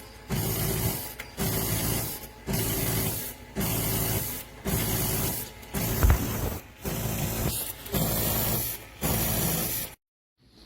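Calphalon Temp iQ espresso machine running in regular pulses, about one a second: each pulse a hiss over a low hum, nine in a row, with a sharp knock about six seconds in. The sound cuts off suddenly near the end.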